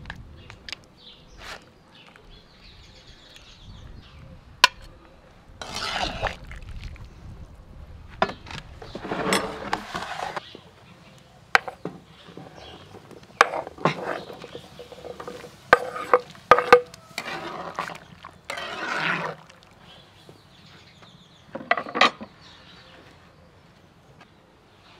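A metal ladle scraping across a plate and a wooden cutting board and knocking against a large cooking pot, in irregular sharp clinks and several longer scrapes as food is pushed into the soup.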